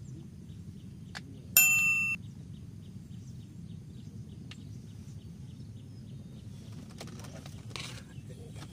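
A single loud, bright bell-like ding about one and a half seconds in, ringing for about half a second before cutting off. A faint rapid ticking runs underneath.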